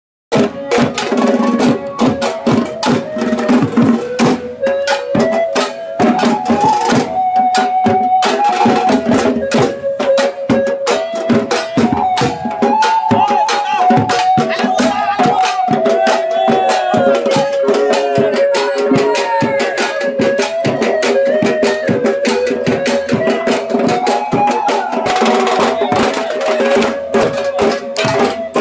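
Group of dhol barrel drums beaten in a fast, dense rhythm, with metal percussion clanging along and a wavering held melody line above the drums. It starts abruptly about half a second in.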